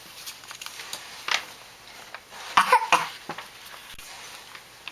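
A short cough, two or three quick bursts about halfway through, with a softer rustle of a paperback picture book's page being turned a little earlier.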